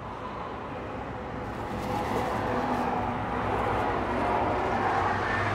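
A motor vehicle's engine and road noise: a steady low rumble that grows gradually louder.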